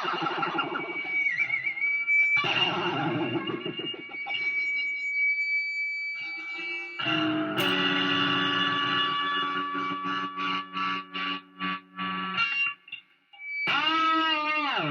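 Distorted electric guitar through effects: noisy scraped strumming over a high, steady feedback whine, then a held chord that breaks into rapid stutters, about three a second. Near the end the notes slide steeply down in pitch.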